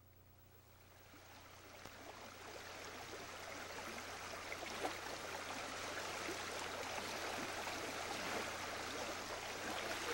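Flowing water of a stream, fading in gradually from faint to moderate, with a low steady hum beneath.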